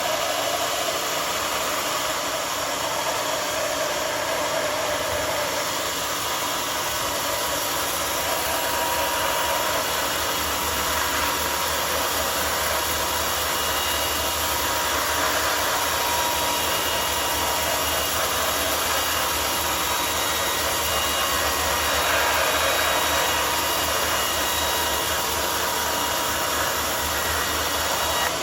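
Homemade sawmill running steadily, its saw blade cutting along a mahogany log in one long, even pass.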